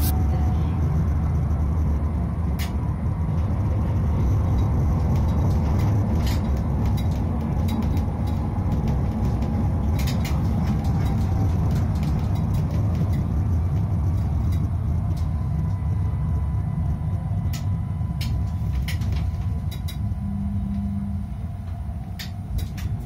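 Tram running on its rails, heard from on board: a steady low rumble of the running gear with scattered sharp clicks and rattles and a faint electric whine.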